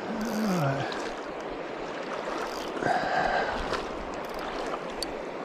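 Shallow river running steadily over gravel. A short pitched sound falling in pitch comes in the first second, and another short pitched sound about halfway through.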